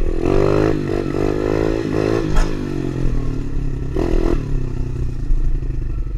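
Tao Tao DB24 110cc pit bike engine running and being revved as it is ridden, its pitch rising and falling with the throttle, with a brief sharp clack about two and a half seconds in.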